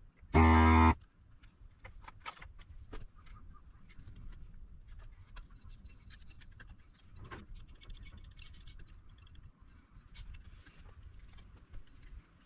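A loud electronic buzzer beep of about half a second just after the start, followed by light clicks, taps and scraping of tools and parts handled on a workbench.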